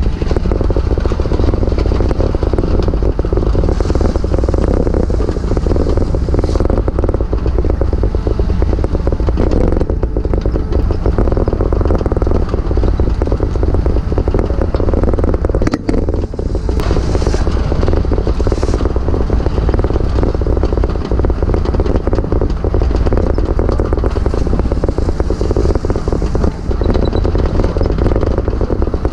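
Heavy construction machine engine, likely an excavator, running steadily under work, with a few faint clicks or clanks.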